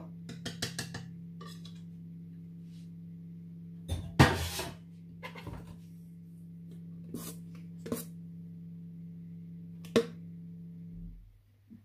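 Metal spoon clinking and scraping against a stainless steel mixing bowl of pancake batter: a few light clicks at the start, a louder knock and scrape about four seconds in, and single clinks near eight and ten seconds. Under it runs a steady low electrical hum that cuts off near the end.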